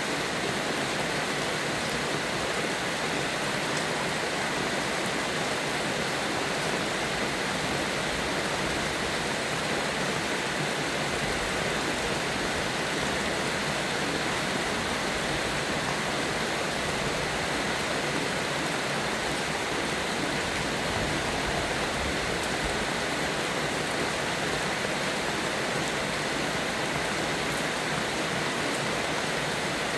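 Steady rain, an even hiss with no thunder and no bird calls standing out.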